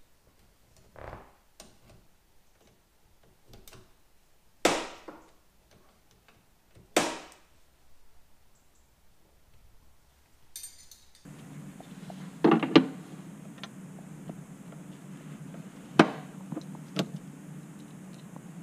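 A spanner clinking and knocking against the battery terminal nuts and clamps as the battery leads are undone, in scattered single knocks. A steady low hum comes in about eleven seconds in.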